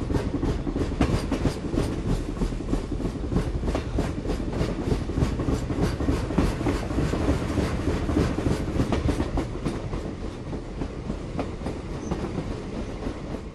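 A train rolling along the track: a steady rumble with a rapid run of sharp clicks from the wheels passing over rail joints.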